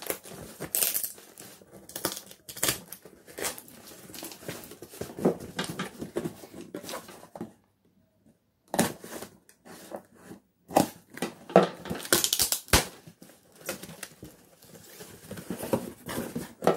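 Tape and a plastic tamper seal being ripped off a cardboard shipping box, and the box cut open with scissors and handled: irregular crackling, tearing and scraping with sharp rips. There is a brief silent gap about eight seconds in.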